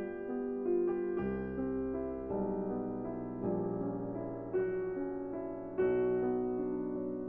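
Soft background piano music, slow notes and chords struck every second or so and left to ring.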